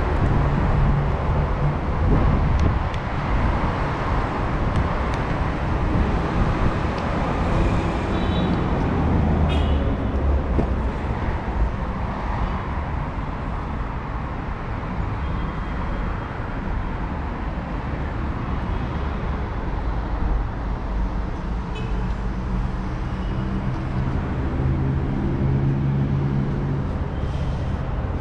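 Steady outdoor traffic noise from road vehicles, with a few short high chirps scattered through it.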